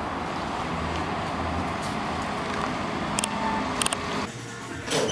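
Steady outdoor road-traffic noise, with a few sharp clicks a little past three seconds and near four seconds. The background falls away sharply about four seconds in, and a short loud noise comes right at the end.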